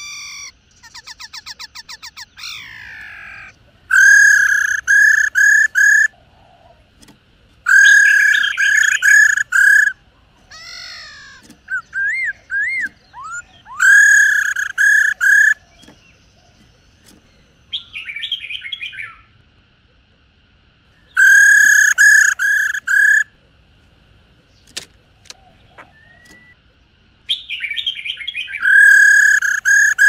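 Black-throated laughingthrushes calling: loud repeated phrases of four or five clear whistled notes, a rapid rattling trill about a second in, and scratchy churring notes between the phrases. The rattle is the female's 'ro' call.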